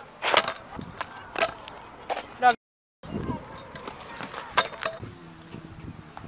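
Stunt scooter clattering on asphalt during flat tailwhip attempts: the deck and wheels knock and slap down on landings several times. The sound drops out briefly about two and a half seconds in.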